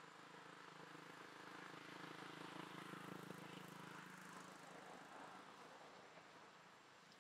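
Faint drone of a distant engine passing by, swelling over the first few seconds and fading away again.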